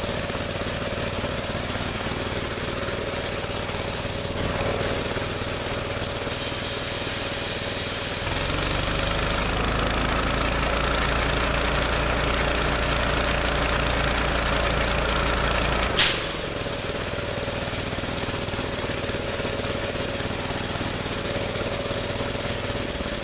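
Petrol-engine air compressor running. A hiss of air starts about six seconds in, and the engine and pump then run harder and heavier under load. About sixteen seconds in, a sharp pop of air comes as the unloader valve opens, and the engine throttles back down to a lighter idle.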